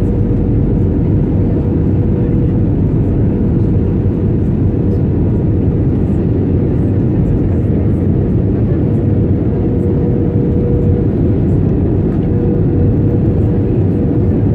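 Cabin noise inside an Airbus A320 on approach: a steady low rumble of the engines and rushing air, with a faint steady hum running through it.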